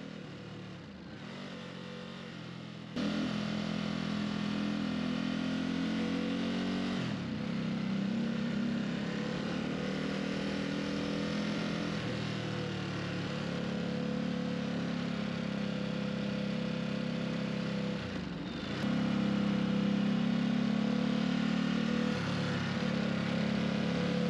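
Ducati Supersport's V-twin engine running under way, heard with wind and road noise. It is quieter for the first three seconds, then louder, and its note dips briefly twice before picking up again.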